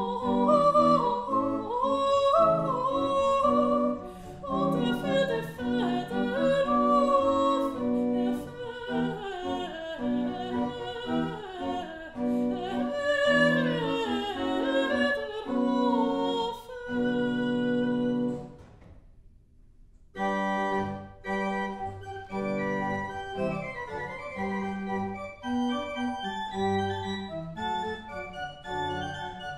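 Soprano singing with pipe organ accompaniment. About two-thirds of the way through, the music ends on a held chord. After a short pause the organ plays on alone.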